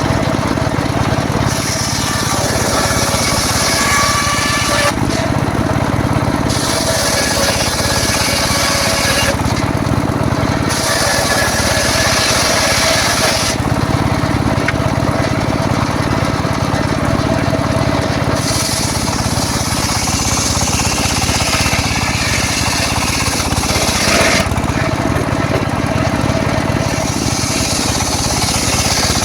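Homemade circular saw cutting teak wood: the saw runs steadily throughout, and the blade's high hiss of cutting comes in about five spells of two to six seconds each, dropping back to the free-running drone between cuts.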